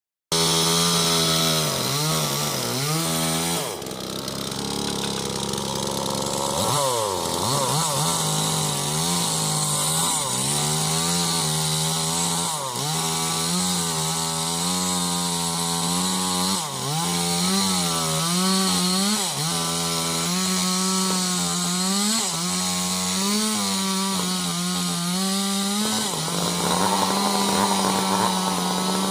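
Two-stroke chainsaw cutting sengon wood at high revs. The engine note dips and recovers again and again as the chain bites into the wood, and it bogs down deeply once, about seven seconds in.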